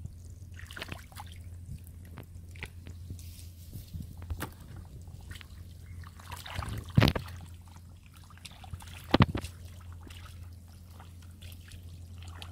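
Hands digging and scooping in wet mud and shallow water: squelching, dripping and small splashes, with two louder wet slaps about seven and nine seconds in, over a steady low hum.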